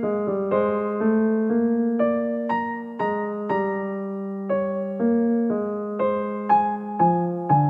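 Slow, gentle piano music: single notes and chords struck about twice a second, each ringing and fading before the next.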